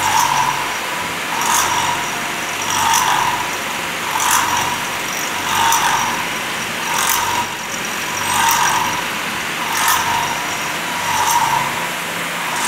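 CNC vertical milling machine cutting a steel mould block with a small end mill under coolant: a slow cut that, by the operator's visitor's reckoning, has removed less than half a millimetre in five minutes. The cutting noise swells and eases about every second and a half as the tool works through its path.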